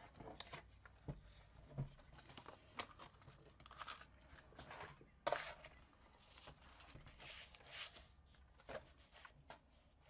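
Faint handling sounds: paper rustling with light taps and clicks as cardstock and a scoring board are moved into place, and one louder knock about five seconds in.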